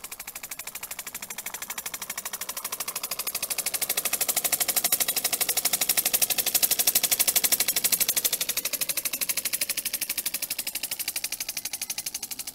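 A model boat's 3cc single-acting oscillating steam engine running under steam, its exhaust puffing in a rapid, even chatter. It grows louder towards the middle and fades near the end.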